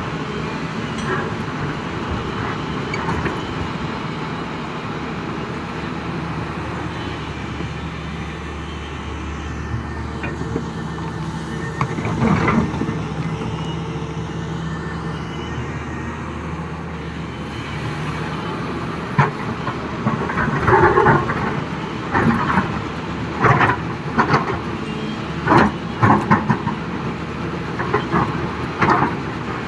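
XCMG excavator's diesel engine running steadily. From about two-thirds of the way through come repeated sharp knocks and clatter of rock against the bucket as it sifts stone.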